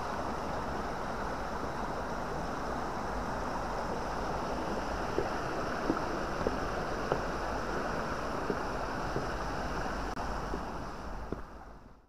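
Steady rush of a fast-flowing shallow stream, with wind on the microphone. From about five seconds in, light footsteps sound about every half second on a wooden footbridge, and the rush fades away near the end.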